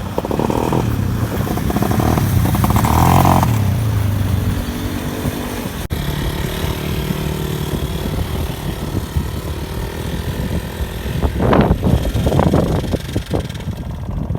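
Off-road vehicle engines running and revving hard. The engine sound changes abruptly about six seconds in, and there are quick sharp revs near the end.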